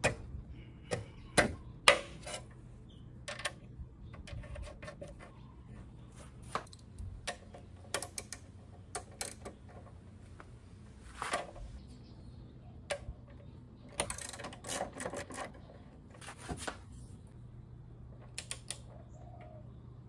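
Irregular metal clicks and clinks of hand tools on a scooter's front axle as the axle bolt is fitted and a socket wrench is worked on it, with a few short runs of quick clicking. A faint steady low hum lies underneath.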